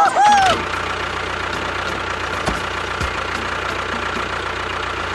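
A brief high-pitched, voice-like sound at the very start, then a steady engine idling sound that runs evenly without change.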